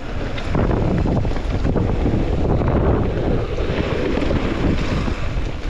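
Steady rush of wind buffeting the microphone of a mountain bike riding downhill, with rolling trail noise underneath.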